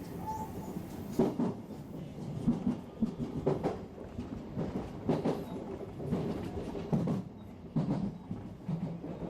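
Electric commuter train running, with a steady rumble and a series of irregularly spaced wheel clacks over the rail joints.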